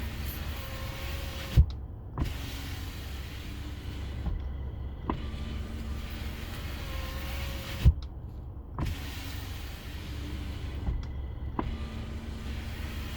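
Kia K5 power window motor running the door glass down and up over and over, each closing ending in a loud thump as the glass seats, twice. It runs smoothly with no creaking, the glass edges worn in by repeated use rather than lubricated.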